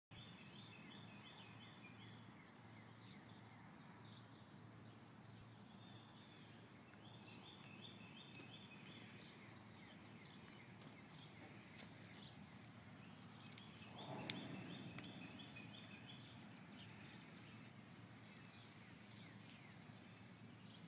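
Faint birdsong: repeated trills of short, high chirps over a quiet hiss. A single sharp click sounds about two-thirds of the way through.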